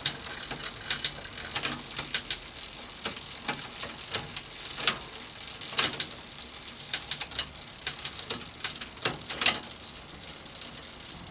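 Irregular sharp clicks and ratcheting from a bicycle drivetrain worked by hand: a freshly fitted trigger shifter clicking through the gears and the rear freewheel ticking.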